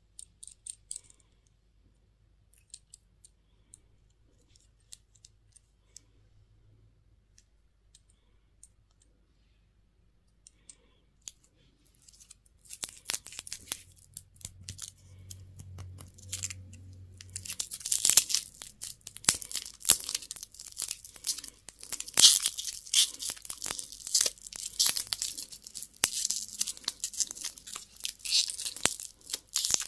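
A few faint scattered clicks and taps, then from about twelve seconds in a candy wrapper being torn and crinkled open, getting louder and denser after about eighteen seconds.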